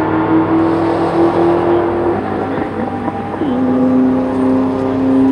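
Engines of two drag-racing cars pulling hard down the strip, one of them a 2003 Mustang Cobra's supercharged V8. The dominant engine note climbs in pitch, breaks off about two seconds in, and about a second later comes back lower and climbs again, as at a gear change.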